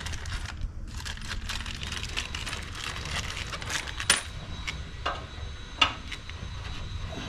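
Small metal screws clinking and clicking as they are handled, with two sharper clinks about four and six seconds in.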